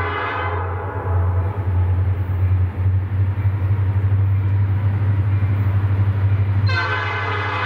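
Norfolk Southern diesel freight locomotive approaching: its horn chord cuts off about half a second in, the engine's low steady rumble carries on, and the horn sounds again about a second before the end.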